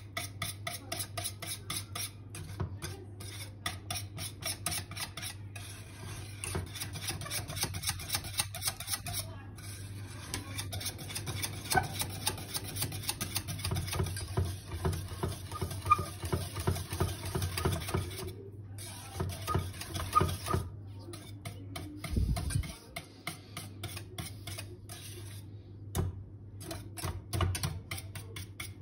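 Wire balloon whisk beating a milk-pudding mixture as it cooks in a stainless steel saucepan, its wires scraping and clicking rapidly against the pan's sides and bottom, with a steady low hum underneath.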